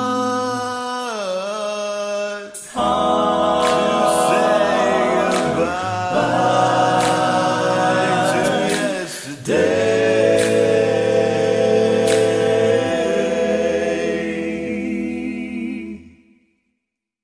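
A cappella vocal harmony: voices hold long chords over a low bass voice, in three long phrases with brief breaks, then die away near the end.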